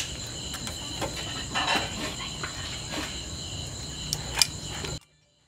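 Steady chorus of night crickets, with sharp clicks of metal tongs against a wire grill, the loudest right at the start and another about four seconds in. The sound cuts off abruptly near the end.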